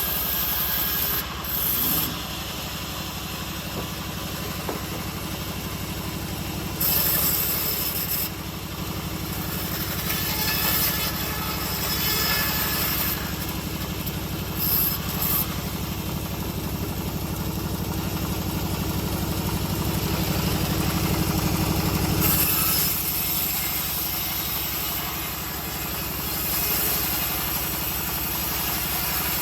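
Engine of a homemade bandsaw mill running steadily, with the blade's high hiss swelling at times as it saws through old teak.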